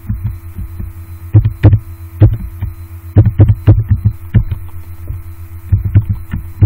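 Keystrokes on a computer keyboard as an email address is typed: irregular clicks in quick runs of several a second with short pauses, over a steady low electrical hum.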